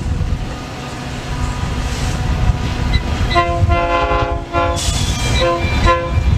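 A horn sounds a held multi-note chord for about a second, then two short toots, over a steady low rumble.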